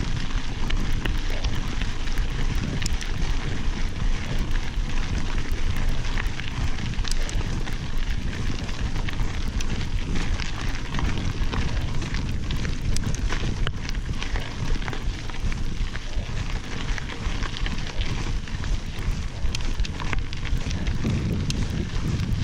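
Mountain-bike tyres crunching and crackling over a loose gravel road, with many small rattling clicks from the bike and a steady rumble of wind on the microphone.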